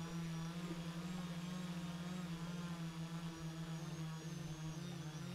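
Steady low hum with faint, slowly wavering higher tones above it.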